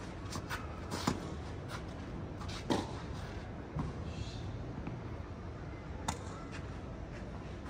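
Tennis ball being struck by rackets and bouncing during a rally: sharp knocks at uneven intervals, the loudest about one second and nearly three seconds in, and another about six seconds in.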